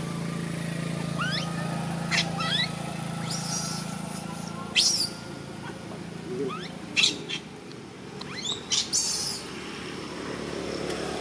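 A baby macaque giving short, high squeaks that rise sharply in pitch, several of them scattered through, with a few brief hissy bursts between.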